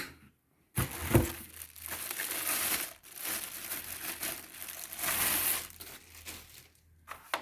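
Plastic packaging crinkling and rustling as it is handled and pulled off a vacuum cleaner part, starting about a second in, with louder bursts of crumpling in the middle.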